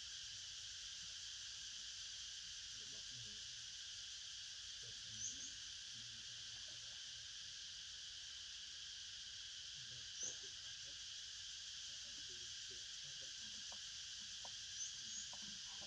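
Steady, high-pitched chorus of forest insects, crickets or cicadas, buzzing without a break. Three short, high chirps stand out, about five, ten and fifteen seconds in.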